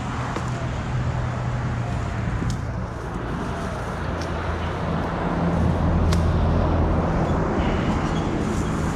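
Low, steady rumble of motor vehicle engines, swelling from about five to eight seconds in, with a few sharp clicks over it.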